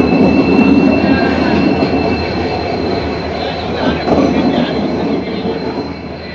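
Passenger train pulling in alongside the platform: the locomotive and then the coaches rumble past, with a steady high-pitched wheel squeal. The noise slowly dies down as the train slows.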